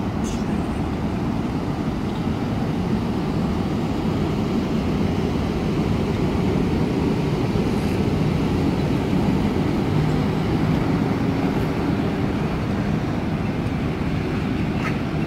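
EU07 electric locomotive pulling two measuring coaches out of the station at low speed: a steady low rumble of wheels on rails with a faint hum.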